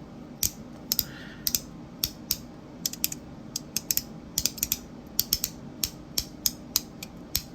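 Magnetic fidget donut being put back together and clicked over and over, its parts snapping together under strong magnets in a string of sharp, uneven clicks, a few a second.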